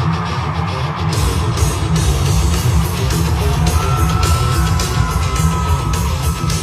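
Loud live heavy metal music played through a concert sound system: distorted electric guitars and heavy drums, with the cymbal hits growing denser about a second in.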